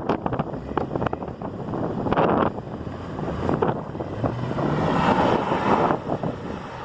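Wind buffeting the microphone over a running vehicle engine, which rises in pitch about four seconds in as it speeds up.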